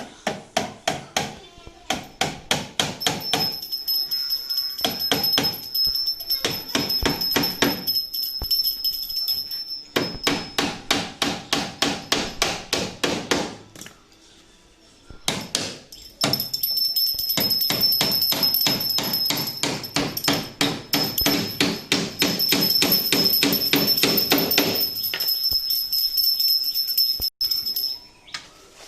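Rapid, evenly paced hammer blows on wood, about four or five a second, in two long runs with a short break midway. A steady high-pitched whine runs along with them.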